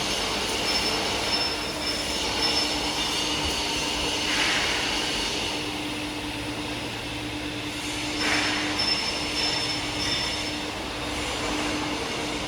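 Continuous sintering furnace line running: a steady mechanical noise with faint steady squealing tones, and a brief rising hiss about four seconds in and again about eight seconds in.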